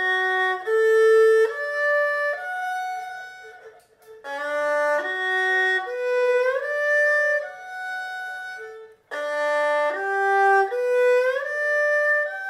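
Solo erhu playing a slow broken-chord arpeggio exercise, one bowed note per beat, in three phrases with short breaks between them. Within each phrase the notes climb, with audible upward slides where the left hand shifts position.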